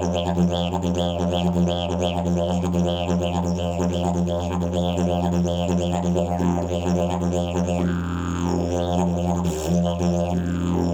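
Hemp-canvas slide didgeridoo playing a steady low drone, pulsed by a rhythmic pattern of overtone sweeps about two to three times a second. Late on come rising overtone glides and a brief break in the drone.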